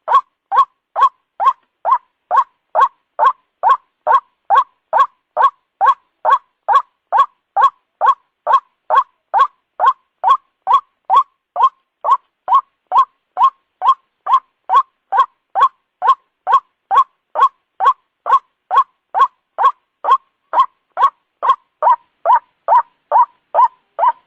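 White-breasted waterhen (ruak-ruak) calling over and over, short loud notes repeated evenly at a little over two a second without a break. This is the rhythmic call used as a lure to draw waterhens in.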